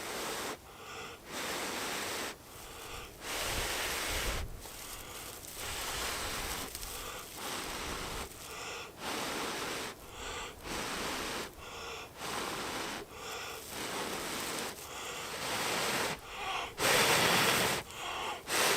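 A person repeatedly blowing on a smouldering amadou (tinder fungus) ember in a tinder bundle to coax it into flame: a long series of breathy blows, roughly one every second or so, with a longer, harder blow near the end.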